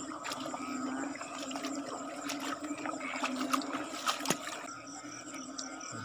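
Splashing, squelching steps through a wet, muddy rice paddy for the first four seconds or so, over a steady chorus of field frogs and insects calling after rain.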